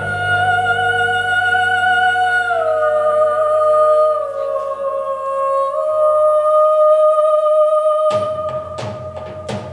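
Music: a long, sustained melody line, humming- or singing-like, that steps down in pitch a few times over a fading low accompaniment. Drums come in about eight seconds in.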